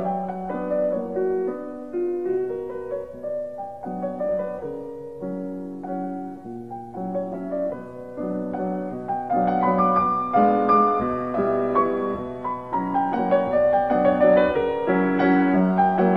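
Background piano music, a gentle melody over held bass notes, growing fuller and louder about halfway through.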